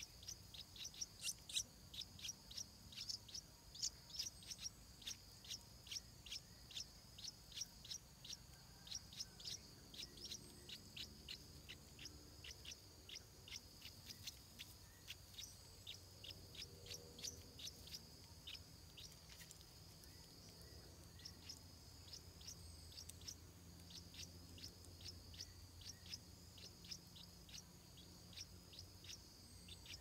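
Stripe-throated bulbul nestlings at the nest giving a long series of short, high begging cheeps, about three a second at first and sparser later on, while the adult is at the nest. The cheeps are faint, over a steady high whine.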